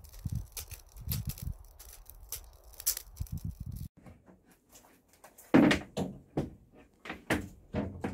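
Wood offcuts burning in a metal bucket, crackling with irregular low rumbles. After an abrupt cut, a series of irregular knocks and thumps follows: carpentry work inside a bare bus shell. The first knock is the loudest, and each rings briefly in the hollow interior.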